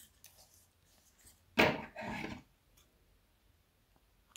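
A lipstick tube being handled: a light click, then a short rough scraping rub of plastic and metal parts about one and a half seconds in, followed by faint ticks.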